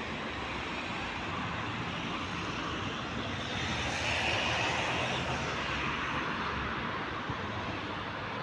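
Steady road traffic noise, swelling for a couple of seconds about four seconds in as a vehicle passes.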